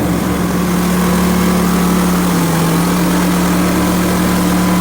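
Hudson HFE30 sawmill's gas engine running steadily, its pitch sagging briefly about halfway through.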